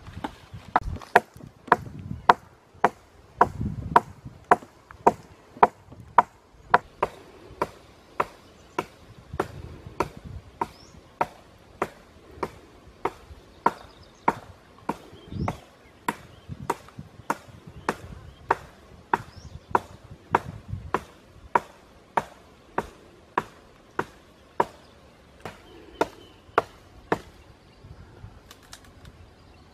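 Steady chopping: a blade striking wood in a regular rhythm, a sharp knock about every half second, the blows thinning out near the end.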